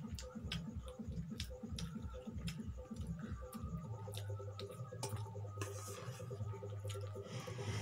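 Forks clicking and scraping against steel bowls in quick, irregular ticks. Under them, a low pulsing beat of about four a second gives way to a steady low hum about four seconds in.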